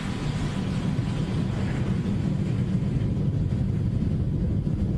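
Falcon 9 first stage's nine Merlin engines firing during ascent: a steady, rough low rumble. The rocket is about 40 seconds into flight and still subsonic, shortly before going supersonic and throttling down for max Q.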